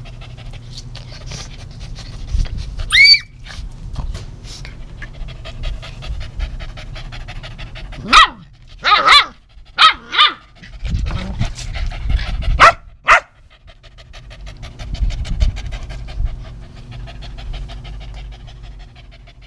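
Keeshond puppies panting quickly and steadily. There is a short rising squeal about three seconds in, and a handful of sharp barks in the middle, the loudest sounds here.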